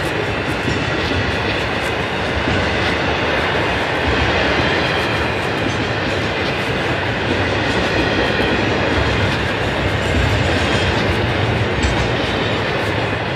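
Container wagons of a long freight train rolling past: a steady rumble of steel wheels on rail, with scattered light clicks as wheels pass over rail joints.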